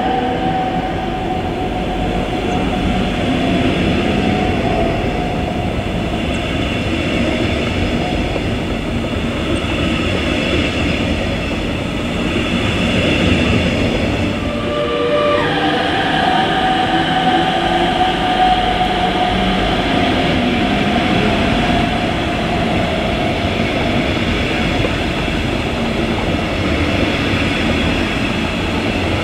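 Train running slowly through a station, a steady rumble of wheels and running gear. A whining tone falls slowly in pitch over the first few seconds, and a similar falling whine starts about halfway through.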